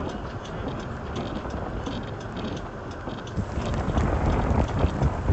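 Gusty wind buffeting the microphone, a low rumbling rush that swells toward the end, with scattered light ticks over it.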